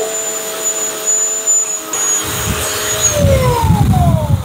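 Bosch electric chainsaw running at full speed with a steady whine, cutting into a block of deadwood. About three seconds in the trigger is released and the motor winds down, its whine falling in pitch.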